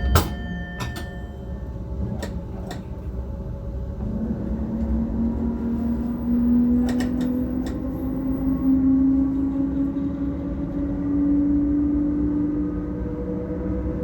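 Electric train, an NS ICM 'Koploper' unit, pulling away: the traction motors give a whine that rises slowly in pitch as it gathers speed, starting about four seconds in. Before that a sharp click, a high tone that stops about two seconds in, and a few scattered knocks and clicks.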